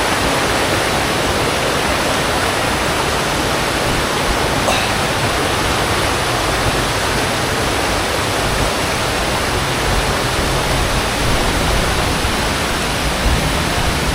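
Waterfall water rushing, loud and steady, an even wash of sound without breaks.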